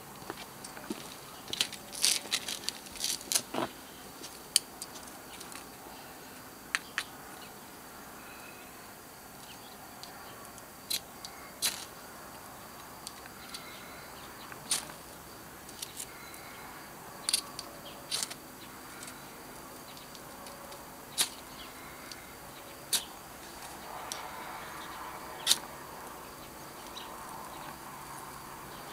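Sparks struck onto tinder with a BSA Hotspark fire starter: sharp scraping clicks, a quick cluster in the first few seconds, then single strikes every second or two. Near the end the lit tinders burn with a soft rushing that grows louder.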